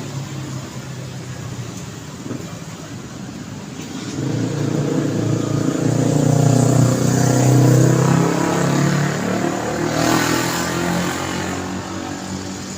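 City street traffic with a motor vehicle passing close: its engine grows louder from about four seconds in, is loudest around the middle, then fades. A brief hiss near the end.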